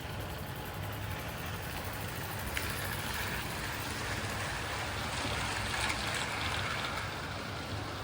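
Hornby Live Steam Seagull model steam locomotive running on its track under steam, pulling a train of eleven cars: a steady rushing hiss over a low hum.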